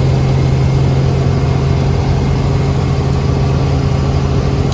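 Helicopter engine and rotor running steadily: a loud, constant drone with a strong low hum.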